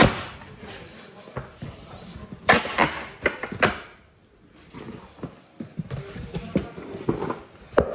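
A cardboard box being cut open with a razor knife and handled: sharp clicks and knocks, with a burst of scraping and tearing cardboard in the middle.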